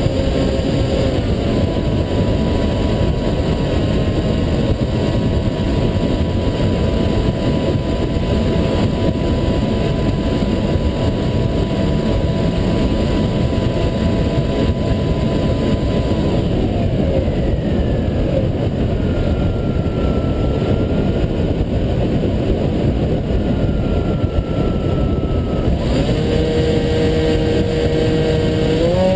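Onboard sound of a Hobbyking Bixler RC plane in flight: its electric motor and propeller whine over a steady rush of wind on the camera. The motor's pitch steps up and down a few times as the throttle changes.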